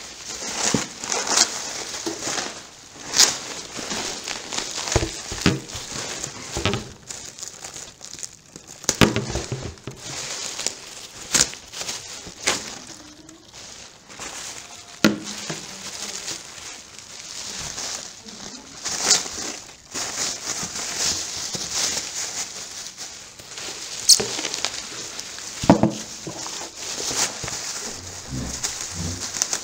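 Plastic packaging and bubble wrap being handled and pulled about, rustling and crinkling continuously with irregular sharp crackles.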